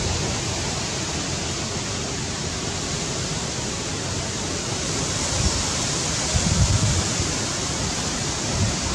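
Steady rushing outdoor noise, with low gusts of wind buffeting the microphone that pick up about six to seven seconds in.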